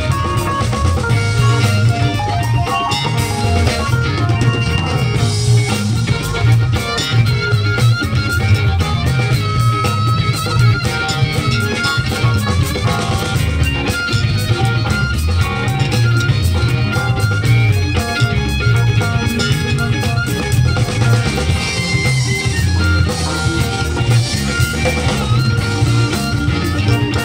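Live blues band playing an instrumental passage: electric guitars and bass over a steady drum-kit groove, with keyboard and horn or harmonica lines.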